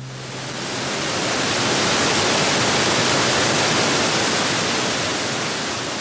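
Steady rush of white water tumbling over several low rock ledges of a woodland creek cascade. It swells in over the first second or two and begins fading near the end.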